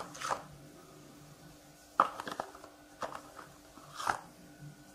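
A few short, sharp taps and clicks about a second apart as Kashmiri chilli powder is added to cauliflower florets in a glass bowl, over a faint steady hum.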